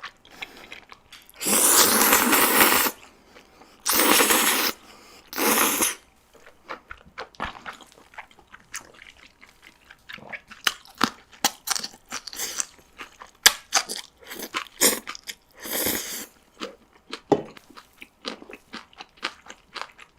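Close-miked eating of black-bean-sauce noodles (jjajangmyeon): three long slurps in the first few seconds, then chewing with many small quick clicks, and another slurp about two-thirds of the way in.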